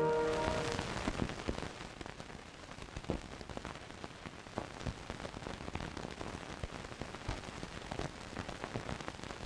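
An orchestral brass chord dies away, then an old film soundtrack runs on with steady crackle and scattered pops.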